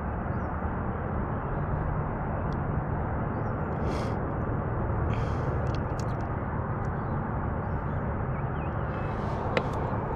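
Steady rushing background noise with a low hum, with faint bird chirps, two brief hissing bursts about four and five seconds in, and a sharp click near the end.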